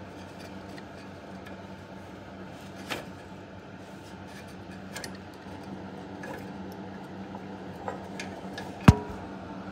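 Hands working the metal power steering cooler lines and bracket: a few light clicks and taps, then one sharp metallic clink that rings briefly near the end. A steady low hum runs underneath.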